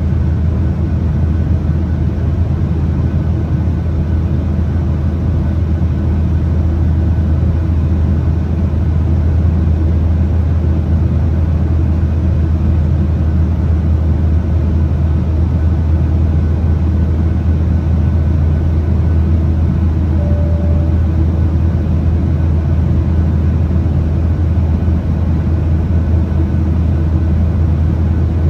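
Steady cabin drone of a Boeing 737-800 in flight, heard from a seat beside the wing: the CFM56 jet engines and airflow make a strong, even low rumble with a hiss above it.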